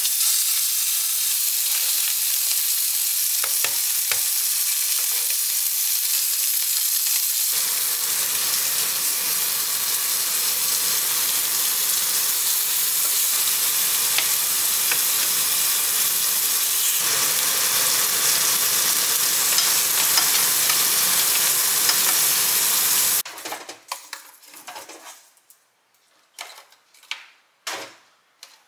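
Steaks sizzling steadily in a hot frying pan on a gas hob. The sizzle cuts off suddenly about three quarters of the way through, followed by a few clinks of metal tongs against a ceramic plate.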